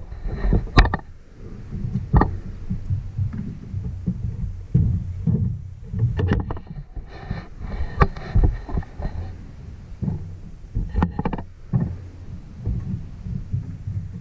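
Handling noise on a GoPro camera: irregular knocks, scrapes and rustles, close on its own microphone, as it is moved about and set down.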